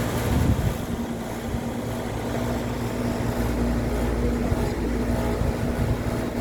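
Comfortmaker air-conditioning unit running in cooling mode: a steady hum over a low rumble, with a little vibration.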